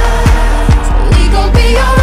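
Background pop song with a steady beat: a booming kick drum that drops in pitch, about two and a half beats a second, under a melody.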